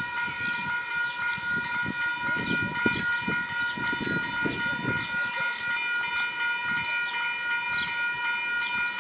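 Level crossing warning bells ringing continuously, a steady multi-toned chime with quick repeated strokes, while the barriers are down for an approaching train. A low, uneven rumble runs underneath.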